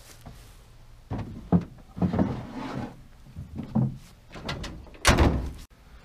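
Knocks and thuds of gear being handled at the back of a pickup truck bed loaded with strapped-down beehives: several separate bumps, ending in a longer, louder bang about five seconds in.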